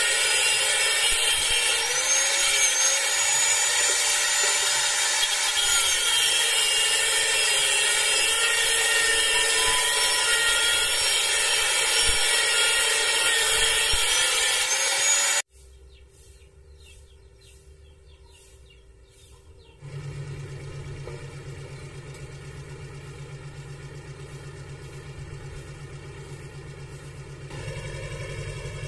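Angle grinder with an abrasive disc cutting into 1-inch round iron, a loud steady high whine with many tones for about the first half. It cuts off suddenly about halfway through, leaving a quiet low steady hum.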